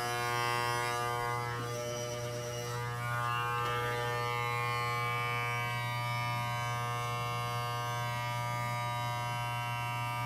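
Corded Wahl electric hair clippers buzzing steadily while trimming hair at the nape of the neck.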